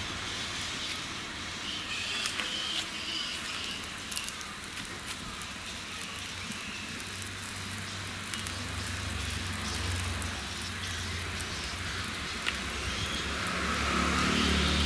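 Oil sizzling under parottas on a flat iron griddle heated by a wood fire: a steady hiss with many small sharp crackles.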